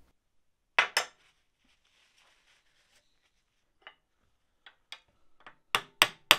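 Two sharp metallic clicks about a second in and a few faint clinks of tools. Near the end come light hammer taps on a drift held against the piston of a seized Triumph TR7 clutch master cylinder, about four a second, tapping the piston back down its bore after grease has been pumped in behind it to free it.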